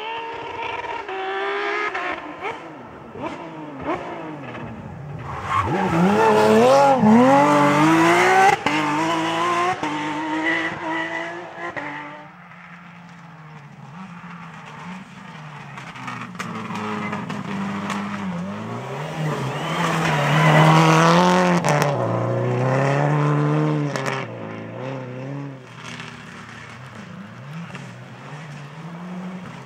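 Subaru Impreza rally cars driven hard, their turbocharged flat-four engines revving up and dropping back through gear changes, with sharp pops from the exhaust. The loudest passes come about six seconds in and again about twenty seconds in.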